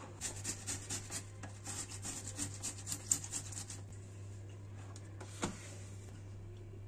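Quick scraping, rasping strokes of a kitchen utensil, about three a second for a few seconds, then a single knock.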